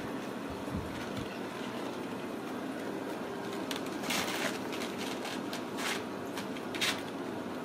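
Kittens' claws scratching and scrabbling at a fabric pop-up pet tent: a few short, scratchy rustles, the longest about four seconds in, over a steady low hum.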